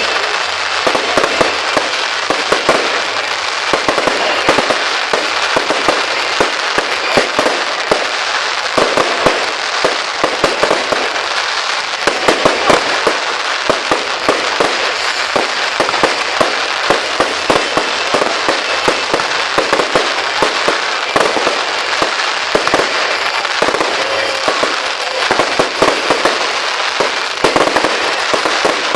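Fireworks display: a dense, unbroken run of sharp bangs, several a second, over a constant haze of noise.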